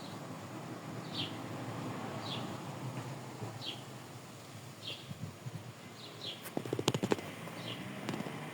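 Saffron finch giving a short, falling chirp roughly once every second or so, with a quick flurry of sharp taps and clicks about three-quarters of the way through.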